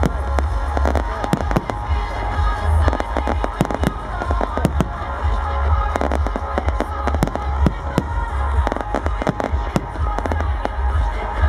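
Fireworks display: a rapid, irregular run of bangs and crackling bursts, with music playing under it.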